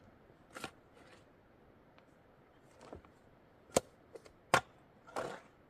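A handful of sharp knocks and taps at irregular intervals, the two loudest a little under a second apart near the middle.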